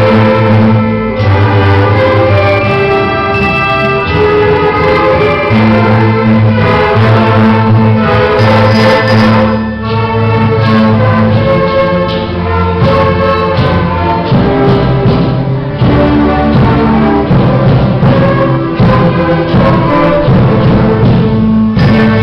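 An orchestral ensemble playing a carnavalito, the Andean folk dance tune, with strings over a steady bass line; the music dips briefly about halfway through and carries on.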